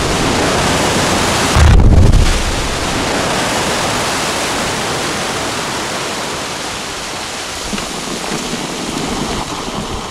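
Quarry rock blast: a loud boom about two seconds in, then a long rumble of breaking and falling rock that slowly fades.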